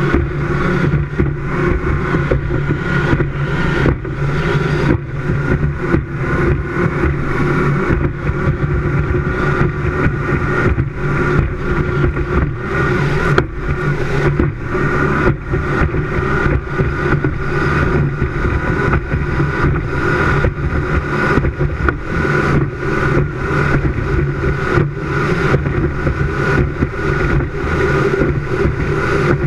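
Performance powerboat running at speed: the engines' steady drone mixed with rushing wind and frequent knocks of the hull slapping the chop.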